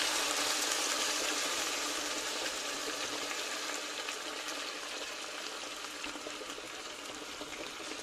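Sweet-and-sour sauce poured into a hot pan of fried pork and vegetables, sizzling steadily and slowly dying down.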